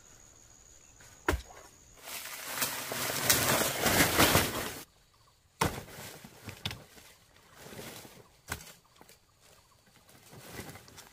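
Dry banana leaves crackling and rustling as someone moves and works through them: a loud spell of dense crackling lasting about three seconds that stops abruptly, then a few sharp snaps and softer rustles.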